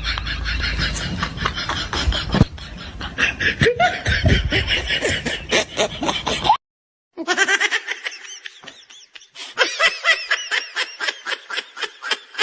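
A person laughing hard in quick repeated bursts, broken by a short silence about six and a half seconds in, then laughing on.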